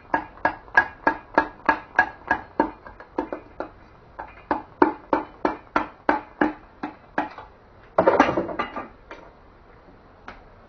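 Steady metallic tapping, like a hammer striking a metal engine part, at about two to three ringing strikes a second. The tapping stops about seven seconds in, followed by a louder clatter of metal lasting about a second.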